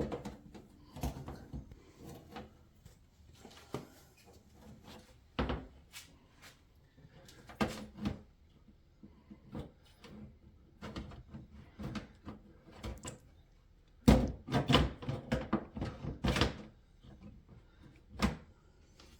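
Scattered knocks and clunks of a glass cooktop being lowered and shifted into place on the stove's frame, with a run of louder knocks late on.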